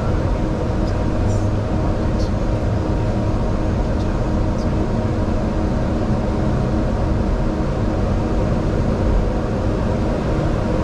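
Steady drone inside an airliner's flight deck as it rolls along the runway: engine and air-system noise with a constant hum and a few faint ticks.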